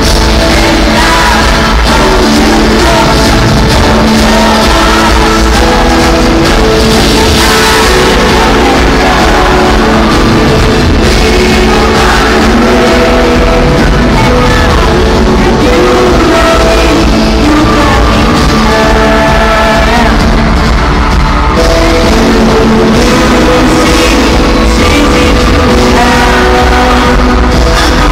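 Live pop band and singers performing over a stadium sound system, heard loud from among the audience, with shouts from the crowd.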